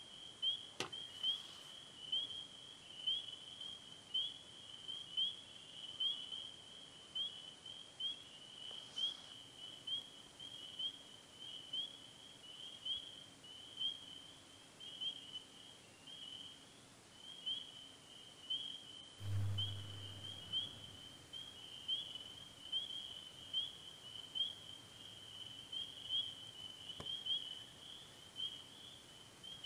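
A steady chorus of short, high, rising peeps, several a second, from small animals calling outdoors. A single low thump about two-thirds of the way through.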